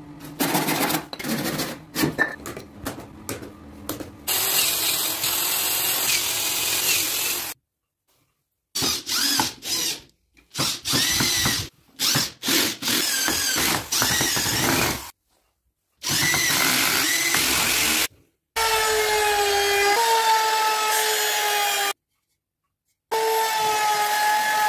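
A run of short power-tool clips split by abrupt cuts: light clicks and handling of wood at the start, then a cordless drill whirring in bursts as it drives screws into wooden stool legs. Near the end an electric trim router runs with a steady whine.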